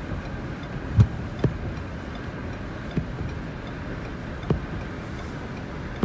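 Windshield wiper knocking at the end of each sweep, about every one and a half seconds, heard inside a vehicle's cabin over a steady rush of blizzard wind.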